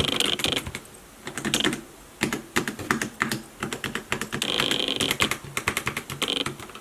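Typing on an ADX FireFight Advanced MK17 TKL mechanical gaming keyboard: rapid clicking keystrokes, pausing for about a second and a half starting about a second in, then resuming.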